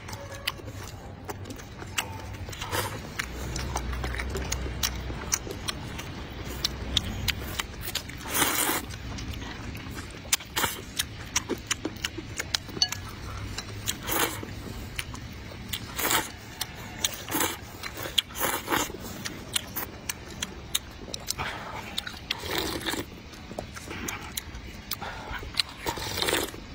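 Mukbang eating sounds: rice noodles and chili broth slurped in loud, irregular bursts a few seconds apart, with chewing and small clicks between them.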